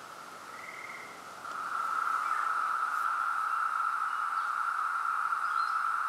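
Chorus of 17-year periodical cicadas: a steady, even drone that gets much louder about a second and a half in.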